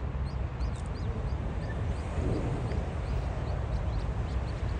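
Mallard ducklings peeping: a steady run of short high peeps, about four a second, over a low rumble.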